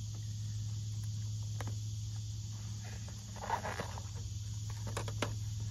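A small cardboard box being opened by hand: a few light clicks and a brief rustle of cardboard and packing about three and a half seconds in, over a steady low hum.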